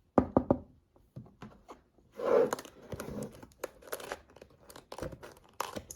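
A cardboard keyboard box being handled and opened: a run of taps and knocks on the box, with crinkling and rustling of the packaging from about two seconds in.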